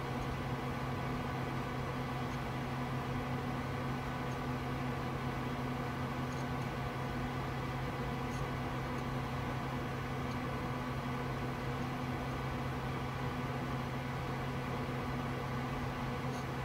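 Steady hum of a running desktop PC, its cooling fans and power supply, with a low drone and several steady higher tones over a light hiss.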